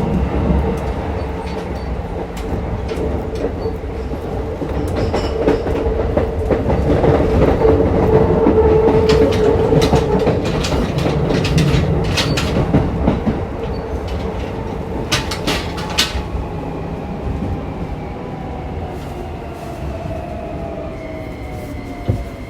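Interior running sound of a Keikyu New 1000 series (1890 subseries) electric train with Toyo hybrid SiC VVVF traction control: steady wheel and motor noise with a held inverter tone, a quick run of wheel clicks over rail joints or points partway through, and the motor tone falling in pitch near the end as the train slows for its stop.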